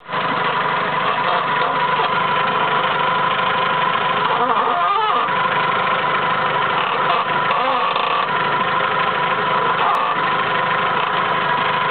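Vauxhall Omega's engine running steadily, with a couple of wavering creaks from the steering, about four and a half and seven and a half seconds in.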